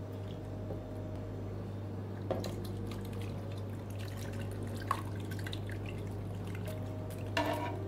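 Chopped tomatoes and their syrupy juice pouring from an enamel dish into an enamelled pot, with wet plops and drips starting about two seconds in and a few louder plops, over a steady low hum.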